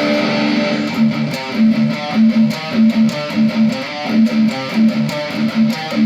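Electric guitar played through a Positive Grid Spark practice amp: a riff of repeated low picked notes, about two a second, with sharp pick attacks.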